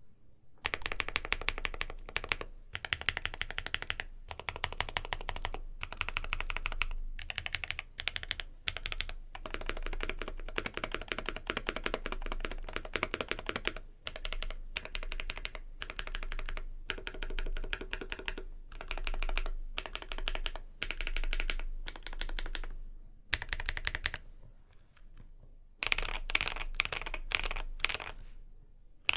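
Typing on a custom MONSGEEK M1 aluminium mechanical keyboard with Kikimeow Vitality tactile switches and PBT cherry-profile keycaps. Keystrokes come in rapid runs separated by brief pauses.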